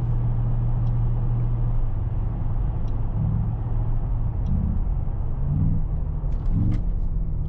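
Mercedes-AMG GT 63 S E Performance's twin-turbo V8 and road noise heard from inside the cabin while driving: a steady low drone with a few short rises and falls in pitch in the second half. The engine is running to recharge the nearly depleted plug-in hybrid battery.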